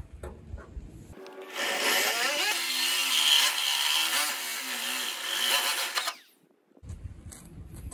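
DeWalt corded drill driving a hole saw through the rusted sheet steel of a VW Bus door: a loud grinding whine that starts about a second and a half in, wavers in pitch as the saw bites and the motor drags, then cuts off abruptly about six seconds in.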